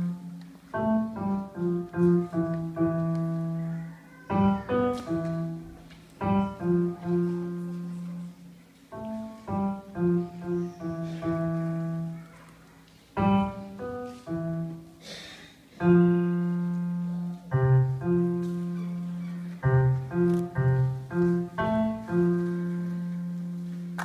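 A piano played in short phrases of notes and chords, each ringing and fading, with brief pauses between phrases.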